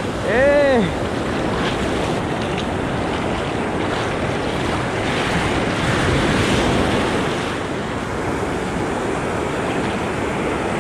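Ocean surf breaking and washing around the wading angler, with wind on the microphone. About half a second in, a short strained shout of effort from the angler rises and falls in pitch.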